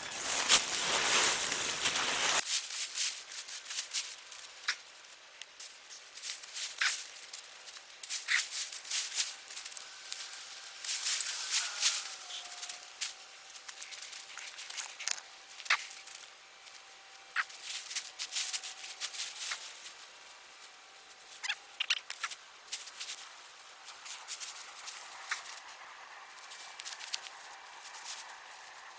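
Hands digging through soil and potato plants: irregular rustling, scraping and crackling clicks, loudest as a dense rustle in the first two seconds.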